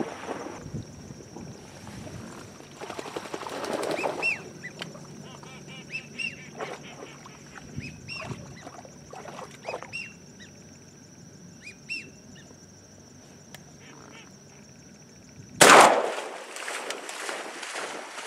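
Wind buffeting the microphone, then a series of short rising-and-falling whistled duck calls of the kind wigeon make. Near the end comes one sudden loud burst, the loudest sound here, followed by a noisy splashing rush as a retriever heads out through the water.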